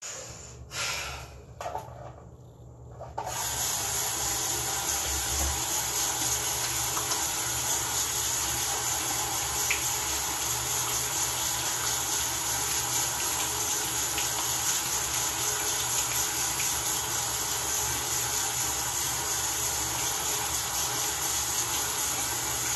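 Bathroom tap running into a sink, a steady rush of water that starts about three seconds in, as hands are washed under it.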